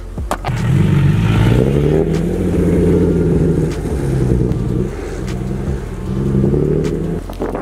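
Nissan 370Z's V6 running through a Tomei Ti titanium exhaust as the car pulls away and accelerates. Its note rises at first, dips about four and a half seconds in, then carries on before easing off near the end.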